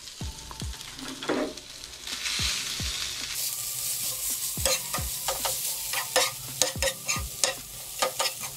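Rice stir-frying in a frying pan, sizzling, with a steel spatula scraping and clicking against the pan as it is stirred. The sizzle gets louder about three seconds in.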